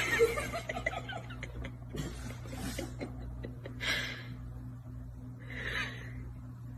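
Two short, breathy bursts of stifled laughter, about four and six seconds in, over a steady low hum.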